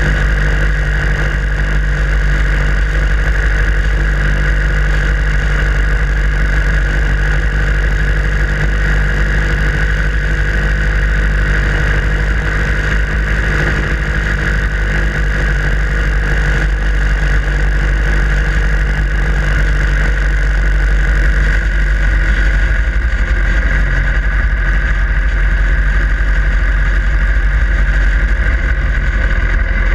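Harley-Davidson Sportster Iron 883's air-cooled 883 cc V-twin running steadily under the rider, with no sharp changes in pace.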